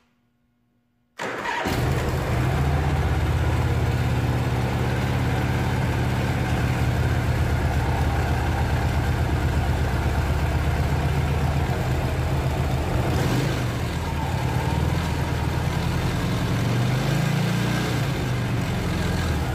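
Honda Gold Wing GL1000's flat-four engine starting about a second in and running steadily, its engine speed rising near the end. It is being run for a stator AC output test on a charging system that is not charging the battery.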